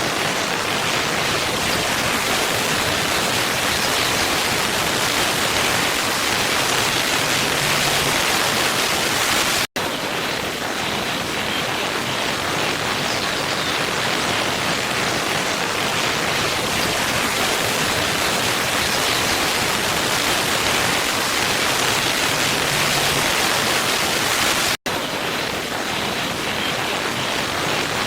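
Waterfall running with a steady, even rush of water. The sound cuts out for an instant twice, about a third of the way in and again near the end, where the looped recording is joined.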